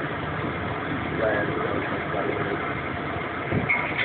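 Vehicle engine idling steadily, with a brief faint voice about a second in.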